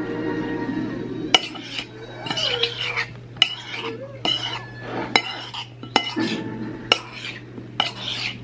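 A spoon stirring strawberries with sugar in a bowl, clinking sharply against the bowl about once a second between softer scraping, to dissolve the sugar until the berries give juice.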